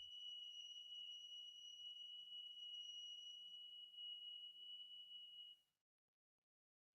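A faint, steady high-pitched tone that cuts off suddenly about five and a half seconds in, leaving dead silence.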